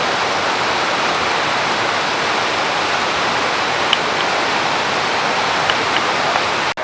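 A river in flood, its water rushing in a loud, steady, unbroken wash of noise. The sound drops out for an instant near the end.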